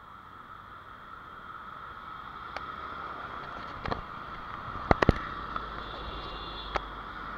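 Small drone's propellers humming steadily and growing slightly louder, with a handful of sharp clicks or knocks in the middle.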